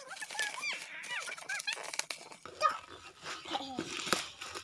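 Black plastic bag wrapping crinkling and crackling as it is pulled off a cardboard box. Chickens call in the background: a run of short chirps in the first two seconds and a lower falling call near the end.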